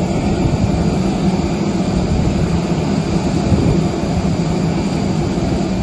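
Steady, loud jet airliner noise on the apron: an unbroken hum and rush from the parked jet.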